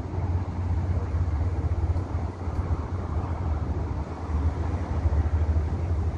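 Steady low rumble of outdoor background noise, rising and falling gently, with no distinct event standing out.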